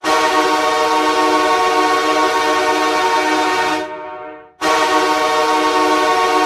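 Hockey goal horn sounding a long, steady blast that fades away a little before four seconds in. A second blast starts abruptly about half a second later.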